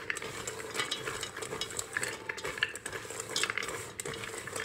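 A spatula stirring whole pecans in a stainless steel bowl to coat them with frothy egg white: a steady run of irregular scrapes, with nuts clicking against the metal.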